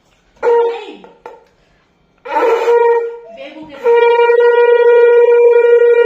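Conch shell (shankh) blown in three goes: a short blast about half a second in that sags and fades, a rougher blast around two and a half seconds in, then a long steady blast from about four seconds in.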